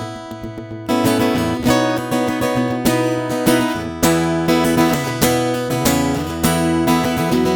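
All-mahogany JCraft Troubadour Taka Mini GS-size acoustic travel guitar being strummed, chords struck about twice a second and left to ring.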